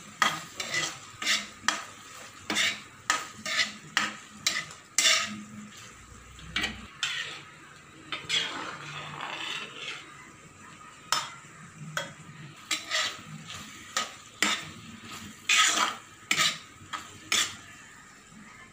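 Metal spoon stirring chopped capsicum in a frying pan: irregular clinks and scrapes of the spoon against the pan, about one or two a second, with a stretch of sizzling near the middle.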